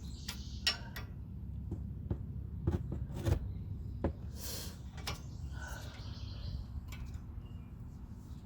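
Tools or parts being handled during a brake job: scattered light clicks and knocks, a short hiss about four and a half seconds in, and a softer rustle around six seconds, over a steady low hum.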